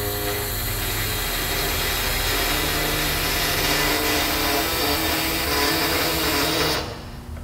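Loaded shop crane rolling across a concrete floor, its casters rumbling steadily, stopping abruptly near the end.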